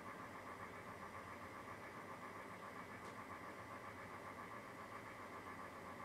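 Faint steady hum and hiss, like a distant machine running, unchanging throughout, with one faint tick about three seconds in.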